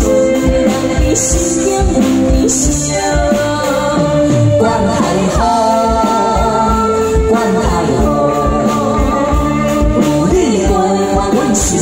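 Live pop duet: a man and a woman singing into microphones over a live band with a steady drum beat and cymbal splashes.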